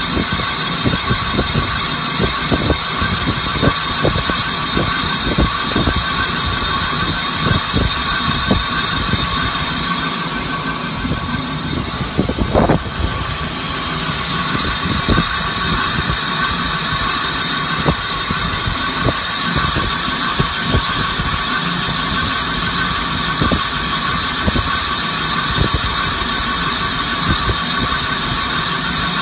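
Machine tool cutting cast iron: a steady high-pitched whine with a dense, irregular crackle of chips breaking off the cut. The high whine fades for about three seconds near the middle, then comes back.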